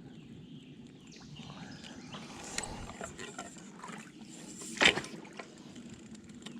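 Scattered faint clicks and light knocks over a quiet background, with one sharper click about five seconds in.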